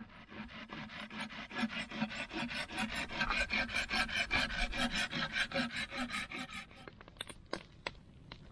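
Green-handled pruning saw cutting through a thin stick of green wood in quick, even back-and-forth rasping strokes, which stop about seven seconds in. A few sharp crackles of a wood campfire follow near the end.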